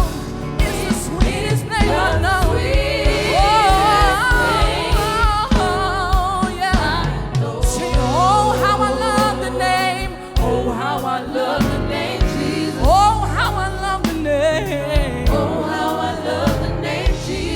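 Gospel music: a vocal group singing with a backing band over a steady beat, with voices sliding through wavering vocal runs.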